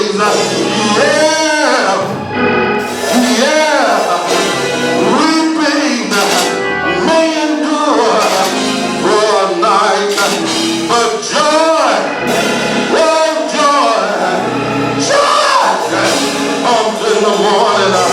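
Gospel music: singing over instrumental accompaniment.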